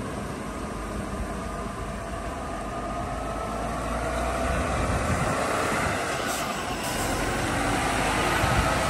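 Diesel engine of a Mercedes-Benz truck pulling a curtain-side semi-trailer, running at low speed and getting louder as it drives past close by. A faint whine rises and then falls in pitch midway.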